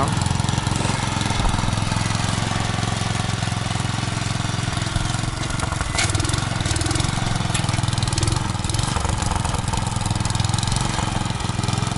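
Old Sears garden tractor's small engine running steadily close by, with a single sharp click about halfway through.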